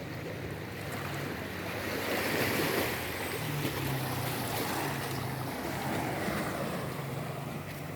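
Sea waves washing on the shore, swelling about two seconds in and then easing, with wind on the microphone.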